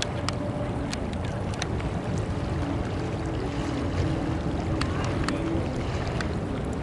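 Airbus A320neo airliner on final approach with its landing gear down: a steady low jet engine rumble with a faint drone.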